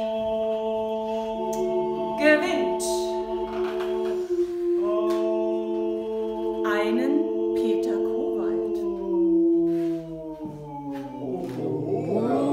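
Several voices singing a cappella, holding long chord notes that shift together every few seconds. Near the end the chord fades and livelier music begins to build.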